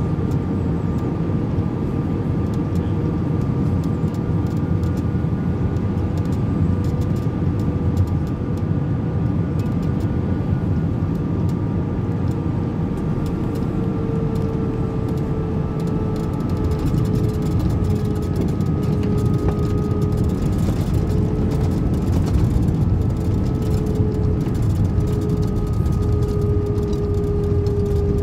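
Airbus A320 cabin noise during final approach and landing: a steady rush of jet engines and airflow with a constant hum of tones. About halfway through, as the aircraft comes over the runway, the hum strengthens. Later the noise rises during the landing roll with the spoilers deployed.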